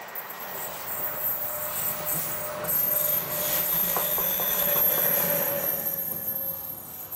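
A Renfe class 253 (Bombardier TRAXX) electric locomotive passing close by, wheels running on the rails. It grows louder to a peak about halfway through, then fades as it moves away. A high steady whine runs over it, and a few light knocks come near the middle.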